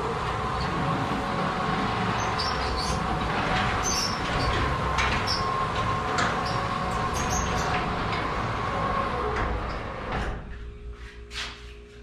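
Garage door opener motor running as the sectional garage door rolls down its tracks: a steady hum with rattles and clicks. It stops about ten seconds in as the door closes, followed by a few clicks.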